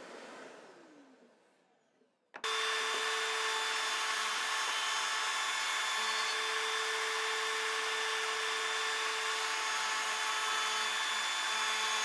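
Electric sander running steadily against hardwood, smoothing glued-up scrapwood coaster blanks. It starts suddenly about two and a half seconds in, after a brief silence, with a steady motor hum under the noise.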